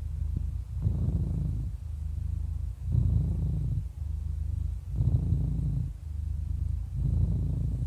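An 11-year-old tabby cat purring steadily, the purr growing stronger and weaker in turn with each breath, one breath cycle about every two seconds.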